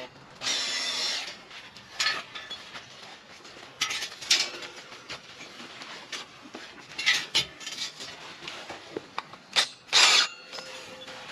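Short bursts of a Makita cordless drill/driver, the loudest near the end, among clanks and rattles of a steel mesh fence panel being handled against the doorway.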